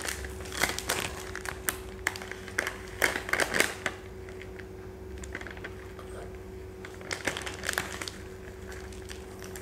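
Plastic-foil pouch of Pitambari shining powder crinkling as it is handled and tipped to pour out the powder, in clusters of crackles through the first four seconds and again about seven seconds in. A steady faint hum runs underneath.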